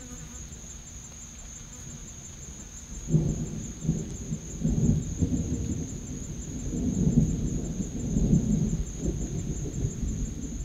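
Thunder rumbling in long, uneven rolls that swell about three seconds in, with a steady high-pitched thin tone running throughout.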